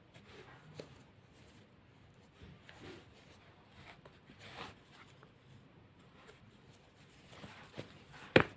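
Faint rustling and scratching of chunky T-shirt yarn being worked with a crochet hook, in soft scattered strokes. A single sharp knock sounds near the end as the bag is lifted.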